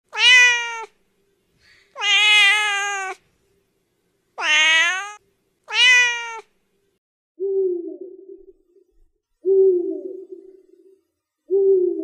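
Domestic cat meowing four times, the second meow the longest. From about seven seconds on, an owl calling three times, about two seconds apart.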